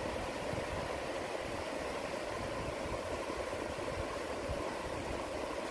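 Steady rush of flowing water from a rocky mountain stream, an even noise with no breaks.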